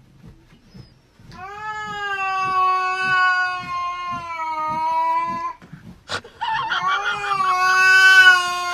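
Grey-and-white cat yowling at a ginger cat: two long, drawn-out caterwauls held at a steady pitch. The first lasts about four seconds; the second starts about six and a half seconds in, just after a sharp click.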